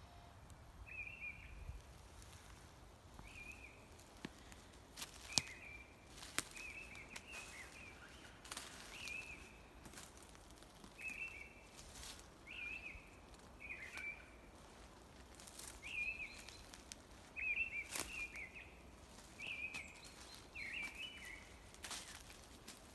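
A small bird calling over and over, short high notes about a second or two apart, with a few sharp snaps of twigs or footsteps on the forest floor.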